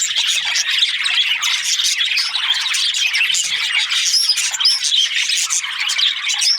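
Many budgerigars chattering at once: a dense, unbroken twitter of overlapping chirps and squawks, with short high whistled notes standing out from about four seconds in.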